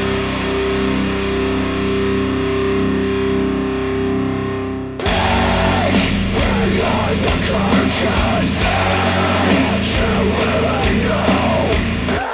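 Rock music with guitar played back through Wharfedale Diamond 12.2 bookshelf speakers: a held chord for about five seconds, then drums and the full band come in suddenly.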